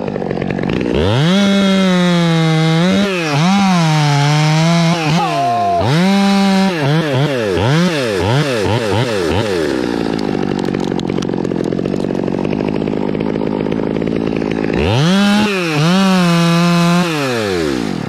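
Top-handle two-stroke chainsaw revved up and down several times. It is then held at full throttle for about five seconds while cutting through a fir limb, and revved again before dropping back near the end.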